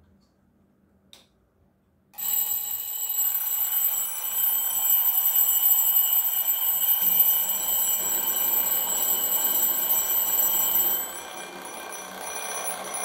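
Alarm clock ringing steadily for about eleven seconds, starting about two seconds in after a faint click. It drops to a quieter level near the end.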